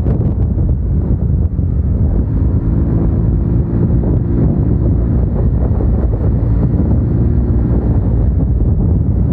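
Motorcycle engine running steadily while riding, under heavy wind rumble on the helmet microphone.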